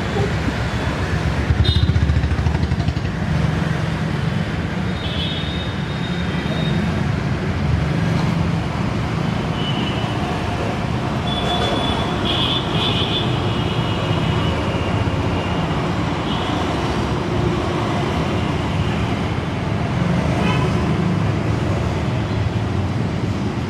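Steady low mechanical rumble, traffic-like, with a few brief high-pitched tones around five, ten and twelve seconds in.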